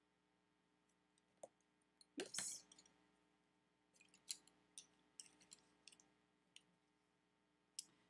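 Faint, scattered clicks of colored pencils knocking together as they are sorted and picked up, with a short rattle about two seconds in.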